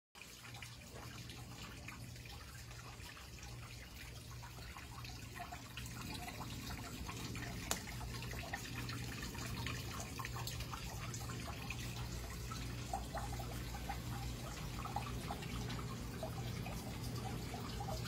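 Water trickling and dripping, with light ticks and small plinks over a steady low hum.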